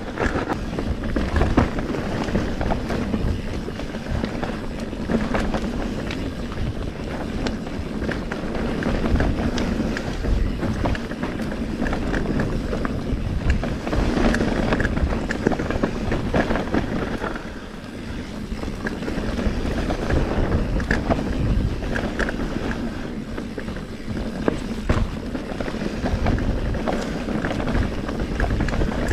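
Mountain bike descending a rough enduro trail, heard from a chest-mounted action camera: wind rushing over the microphone, the bike rattling, and many short knocks as the wheels hit roots and rocks. It eases briefly about two-thirds of the way through.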